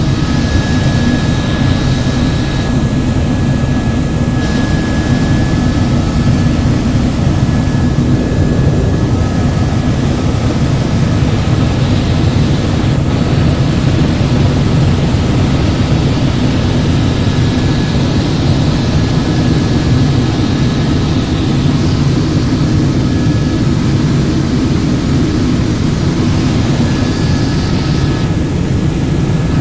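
Helicopter in flight: steady rotor and engine noise with a thin high whine running through it.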